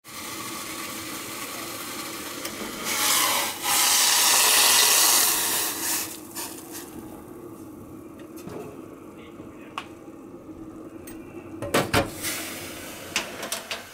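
Liquid poured from a saucepan onto dry kibble in a steel dog bowl: a hissing, splashing pour for about three seconds after a softer steady hiss. This is followed by a few light clinks and knocks of metal on a stainless-steel counter.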